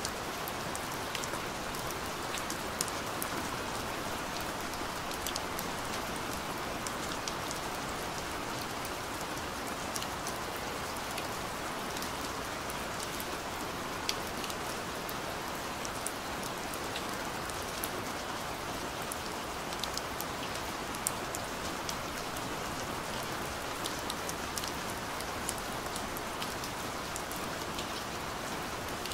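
Steady rain falling: an even hiss with many sharp ticks of single drops scattered through it.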